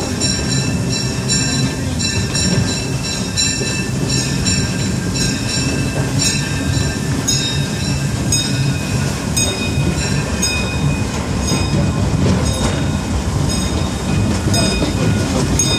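Narrow-gauge steam train running along the track, heard from aboard a passenger car: a steady loud rumble of wheels and cars, with high-pitched wheel squeal coming and going.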